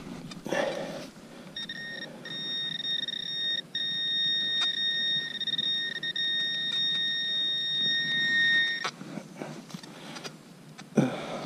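Handheld metal-detecting pinpointer sounding a steady high-pitched beep as it is held over a target in the dug hole. The beep starts a second or two in, breaks off briefly a couple of times, and stops a couple of seconds before the end, over rustling of soil and gloves.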